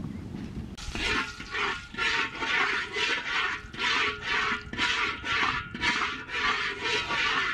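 Water splashing in quick, regular strokes, about two a second, starting about a second in.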